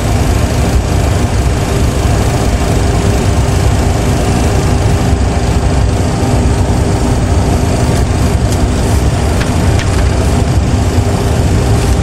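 Steady low rumble of a Boeing 737 Classic full flight simulator's reproduced jet engine and taxi sound, the engines at idle thrust while the aircraft taxis. A few faint clicks come about eight to ten seconds in.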